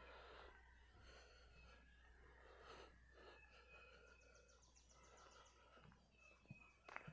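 Near silence: faint outdoor ambience with distant bird calls and a low steady hum.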